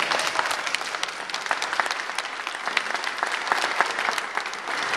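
Crowd applauding, a dense, steady clapping.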